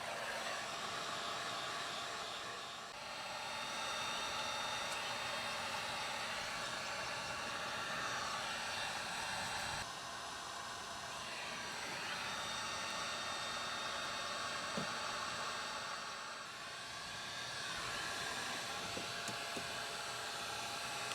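Heat gun blowing hot air steadily, dipping slightly in loudness a couple of times.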